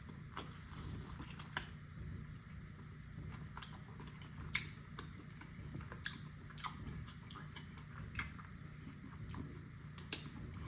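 Quiet chewing of sticky barbecue ribs, with scattered faint mouth clicks and smacks.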